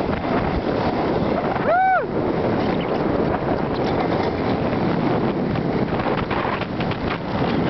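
Wind rushing over the microphone and the hiss of a sled sliding fast over packed snow on a downhill run. One short high call rises and falls about two seconds in.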